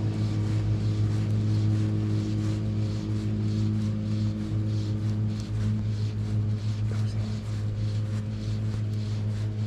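A steady low mechanical hum, like a motor running at constant speed, holding one pitch throughout.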